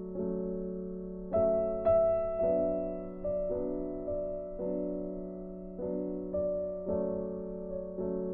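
Background music: a slow solo piano piece, each note struck and left to ring and fade, roughly one note every half-second to second.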